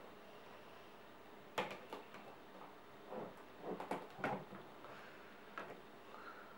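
Faint scattered taps and clicks of a soap loaf cutter being handled and lined up in the slots of a soap mould, a small cluster of them about four seconds in.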